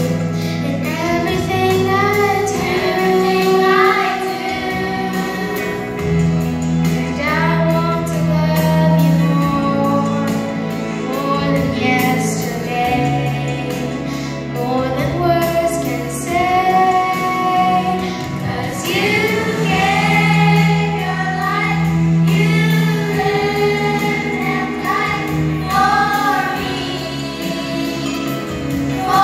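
Children's choir singing a gospel-style song, with a girl singing lead into a microphone, over an accompaniment of steady held low notes.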